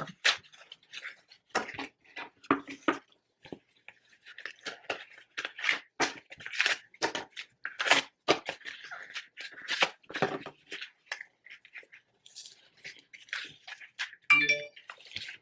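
Cardboard box being torn apart and crushed by hand: an irregular run of crackles, crunches and short rips.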